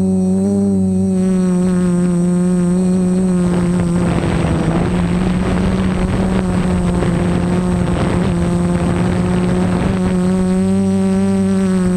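Multirotor drone's motors and propellers humming at one steady pitch that wavers slightly. A rushing noise joins from about four to ten seconds in.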